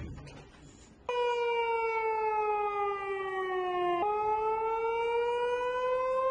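Civil-defence warning siren starting suddenly about a second in. Its pitch slides slowly down for about three seconds, then jumps and slowly rises again. It is sounding as part of a test of the public warning system.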